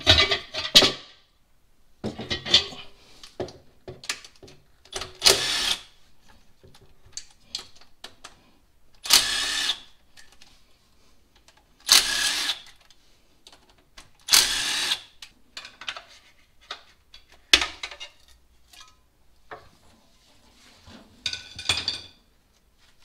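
A handheld power tool, such as a cordless ratchet or drill, runs in several short bursts, with clinks of metal tools in between, as it backs out the bolts of the engine's rear main seal housing.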